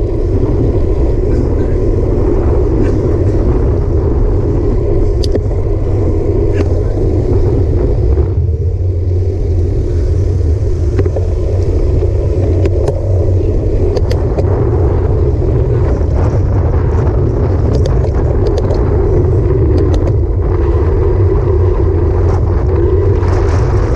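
Wind rushing over the microphone of a handlebar-mounted action camera on a moving road bike, over a steady low rumble of tyres on asphalt. It eases for a few seconds about nine seconds in as the bike slows and coasts, then builds again, with scattered light ticks.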